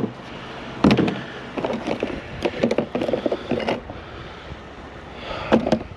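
Irregular knocks and clunks from items being handled and moved about, over a steady background hiss.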